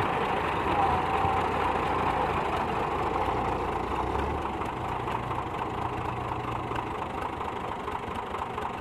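New Holland Fiat 480 tractor's diesel engine running steadily, with a second tractor's engine running alongside.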